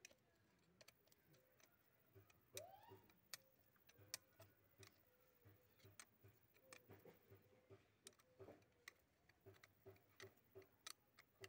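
Faint clicks and light metal taps of hand tools working on a Tata Sumo starter motor's housing, with a soft regular ticking of about three a second in places.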